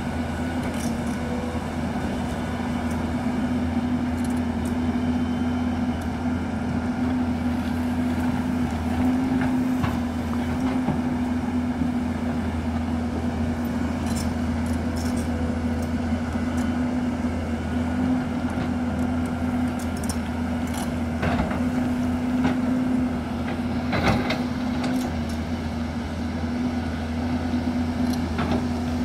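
Hyundai crawler excavator's diesel engine running steadily under digging load, with scattered sharp clanks and knocks as the bucket works the rocky soil.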